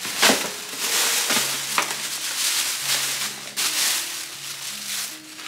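Plastic bags crinkling and rustling as party supplies are handled and dropped into a clear plastic storage bin, with a sharp knock about a quarter second in.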